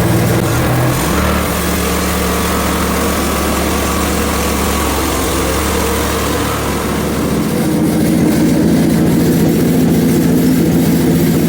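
Hudson HFE30 band sawmill running steadily as a freshly resharpened band blade makes a cut through a log. The engine note shifts about a second in and changes again a little past the middle.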